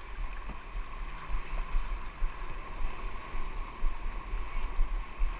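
Sea water sloshing and splashing around a paddled whitewater kayak, with uneven wind rumble on the microphone.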